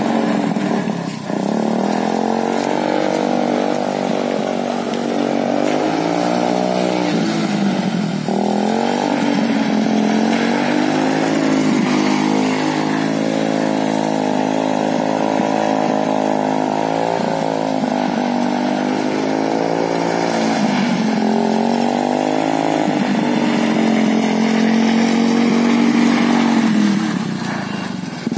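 Student-built go-kart's small petrol engine running under throttle as the kart is driven, its pitch rising and falling again and again as the driver opens and eases the throttle. It drops away briefly about a second in and again partway through, and eases off near the end.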